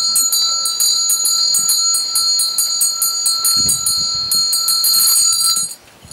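Small Tibetan hand bell rung rapidly, with quick clapper strikes over a bright, sustained ring. It stops abruptly shortly before the end.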